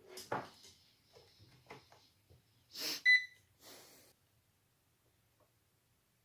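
Faint clicks and rustles of handling, then about three seconds in a single short electronic beep, a digital multimeter's beep as its probes are put to a drained iPhone 6 battery's terminals to read its voltage.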